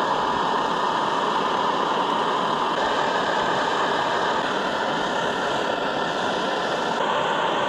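A liquid-fuel backpacking stove burning under a pot, making a steady rushing noise.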